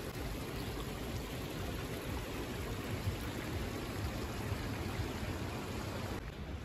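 Steady rushing of a mountain river, an even hiss of flowing water whose higher part thins out about six seconds in.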